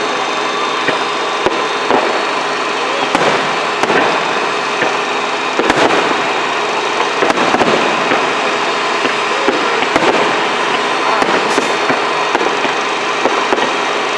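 Fireworks going off: a continuous dense crackling with sharp bangs at irregular intervals, several every few seconds.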